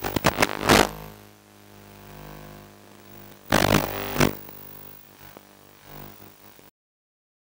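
Small remote-controlled tank's drive and tracks rattling and scraping in bursts, with a steady hum between them. The sound cuts off abruptly near the end.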